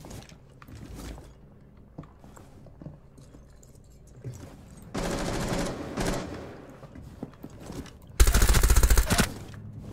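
Video-game gunfire: an in-game suppressed MP5SD submachine gun fires a rapid full-auto burst of about a dozen rounds, lasting about a second, near the end. A quieter stretch of shooting comes about five seconds in.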